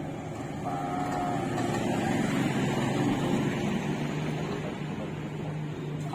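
A motor hums steadily, swelling louder about two to three seconds in and then easing back.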